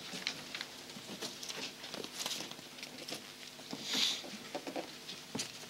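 Large paper display boards being handled: rustling and light scattered knocks as a panel is slid out and lifted up, with two brief louder rustles a couple of seconds in and about four seconds in.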